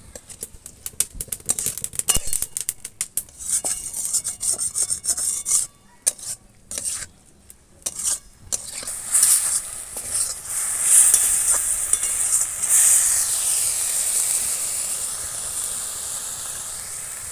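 A spatula scrapes and clicks against a metal kadai as prawns are stirred with salt and turmeric. From about nine seconds in, the prawns sizzle steadily as they fry in hot mustard oil.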